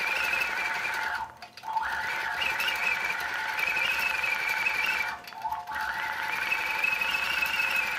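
Longarm quilting machine stitching steadily, a high-pitched whine with two brief dips in level.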